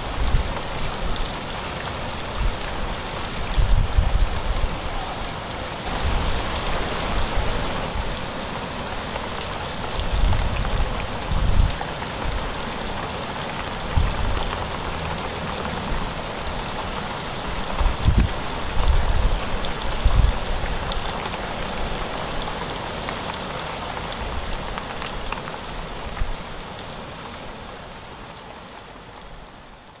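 Heavy rain pouring down steadily, with occasional short low rumbles, fading out over the last few seconds.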